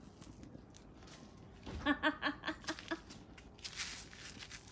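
A person's voice briefly, in a quick run of short pulses about two seconds in, then a short hiss near the end.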